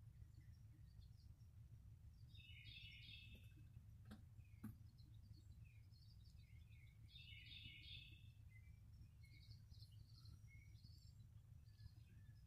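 Faint songbird chirps and calls from the woods, with two short bursts of song about two and a half and seven seconds in, over a steady low rumble. A couple of faint clicks a little after four seconds.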